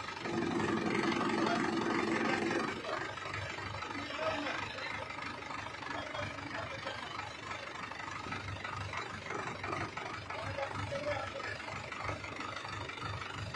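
Excavator's diesel engine running. It is louder for the first few seconds, with a steady hum on top, then runs on steadily at a lower level.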